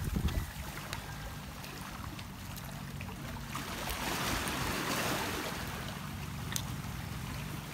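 Sea waves washing over a pebbly shore, one swelling and fading about halfway through, with a sharp click near the end.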